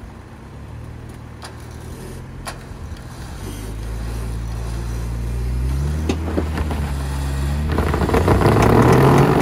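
Stuck Jeep Wrangler's engine running under load while it is winched out, its pitch and level rising through the pull. A loud rushing noise joins about eight seconds in and is the loudest part.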